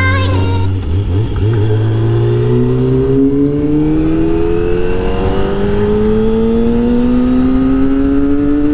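Kawasaki ZX-25R's 250 cc inline-four with a Yoshimura R-77 exhaust accelerating under load, its pitch climbing slowly and evenly for several seconds in one gear.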